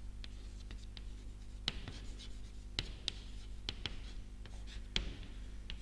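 Chalk writing on a chalkboard: a string of sharp, irregular taps and short scratches as the letters are formed, over a steady low hum.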